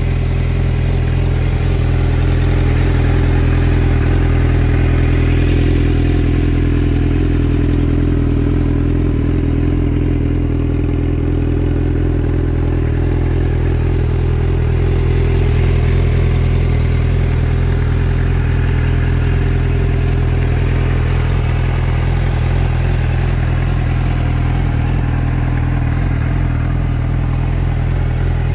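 2004 Suzuki GSX-R750's inline four-cylinder engine idling steadily.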